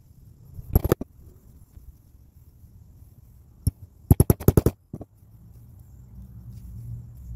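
Sharp clicks and taps from leatherworking hand tools, mostly single or paired, with a fast run of about seven clicks in half a second a little past the middle, over a low hum.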